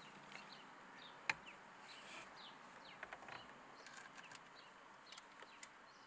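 Quiet background with scattered light clicks from parts being handled, one sharper click about a second in and a few small ticks around the middle, with faint short bird chirps behind.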